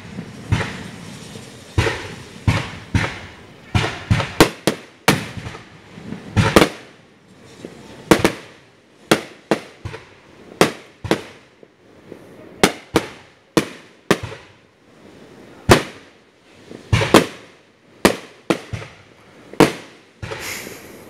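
Aerial fireworks display: a dense, irregular string of sharp bangs as shells burst one after another, sometimes several in quick succession, each with a short echoing tail.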